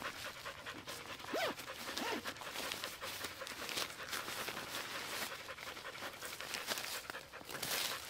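Repeated panting breaths.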